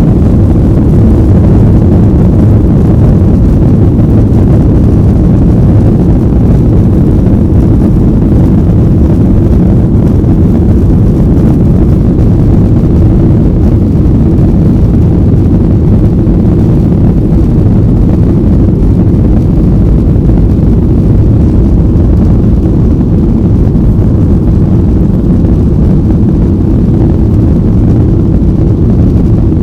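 Jet airliner's engines and airflow heard from inside the passenger cabin: a loud, steady low roar that does not change.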